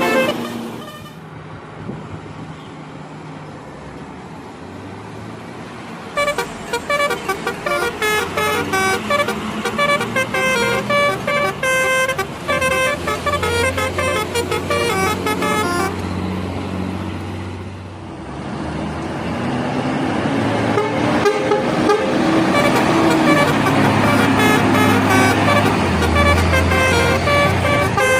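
Indonesian bus 'telolet' horn, a multi-tone air horn, playing a quick tune of short notes that step up and down in pitch, over and over for about ten seconds. Later a bus engine running grows louder, with more horn notes over it.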